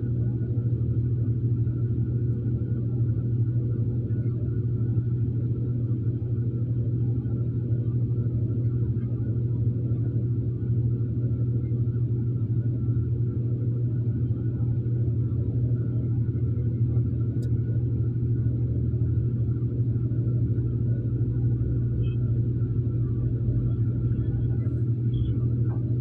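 Diesel engines of a bulldozer and an excavator running while they work, a steady deep drone that holds unchanged throughout.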